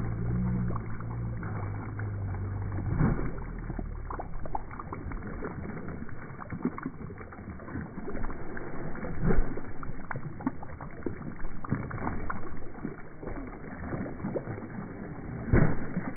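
Water splashing and sloshing as a dog paddles and thrashes through a swimming pool: a run of irregular splashes, a few of them louder.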